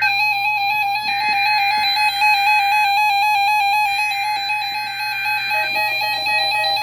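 NOAA Weather Radio SAME header data bursts, two-tone digital data signals heard as two long bursts about a second apart, opening the Required Weekly Test. They sound over a continuous electronic melody.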